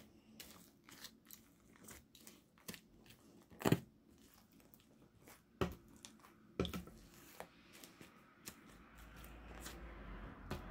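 Slime being worked by hand, giving sticky pops and crackles: a few sharp pops stand out among many softer clicks. A steady low hum comes in near the end.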